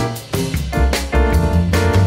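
Jazzy background music with piano, bass and drums keeping a steady beat.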